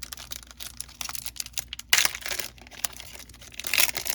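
The foil wrapper of a trading card pack crinkling as it is torn open, with two loud rips: one about two seconds in and one near the end.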